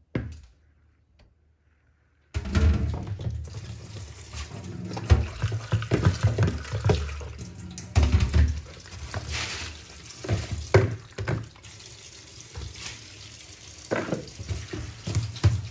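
Kitchen tap running into a stainless-steel sink while guinea corn is rinsed in a plastic colander to wash out sand. The water starts suddenly about two seconds in, with splashing and short knocks of plastic bowls through it.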